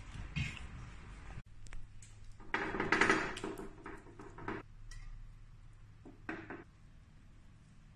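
A metal spoon scraping and knocking against a nonstick pan and a ceramic serving dish as a thick mash is scooped out and tipped in. The loudest scrape comes about three seconds in, with short clicks before and after it.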